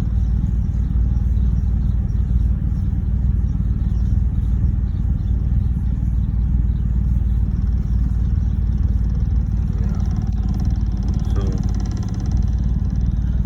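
2011 BMW 328i's 3.0-litre straight-six engine idling with a rough idle, which the owner puts down to the ignition coils.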